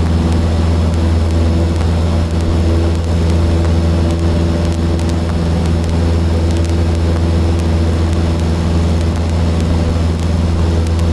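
Cessna 152's Lycoming O-235 four-cylinder engine and propeller running with a loud, steady drone.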